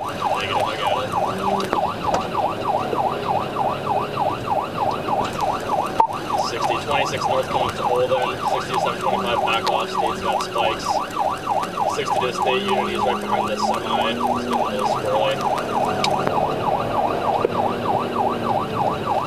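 Police car siren on the fast yelp setting, its pitch rising and falling rapidly, several times a second, without a break, with a lower steady hum underneath.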